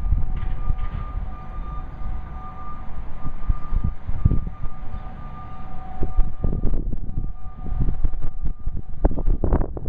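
Distant outdoor warning sirens sounding a steady two-tone chord that fades out in the second half, under heavy wind rumble on the microphone.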